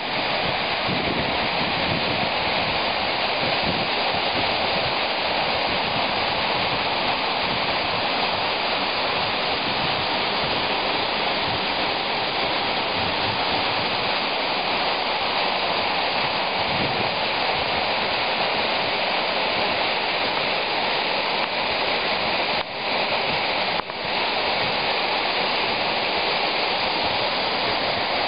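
Waterfall pouring down a layered rock face and splashing onto rocks and a shallow pool at its base: a steady, even rush of falling water, with two momentary dips in level late on.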